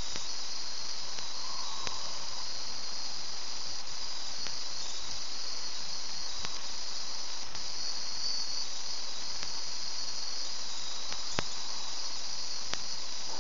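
High-voltage circuit of a ZVS driver, flyback transformer and spark gap running: a steady high-pitched hiss with a few sharp clicks scattered through it.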